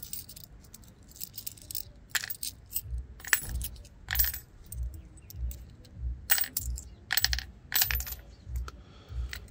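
Coins and rings clinking and rattling in a washing machine drain pump run without its coin filter: many sharp metallic clinks at irregular intervals, with a low regular knocking from about three seconds in.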